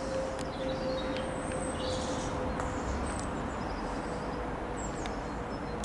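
Airbus A320neo jetliner passing overhead on descent, its Pratt & Whitney PW1100G geared turbofans giving a steady rush with a humming tone that slowly falls in pitch. Small birds chirp now and then.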